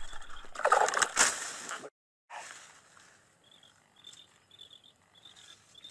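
Water splashing in bursts for about two seconds as a hooked crucian carp thrashes at the surface, then it cuts off suddenly. Faint repeated bird chirps follow.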